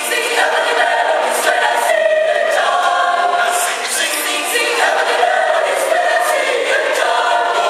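Mixed choir of men's and women's voices singing together in parts, with crisp hissing consonants standing out again and again.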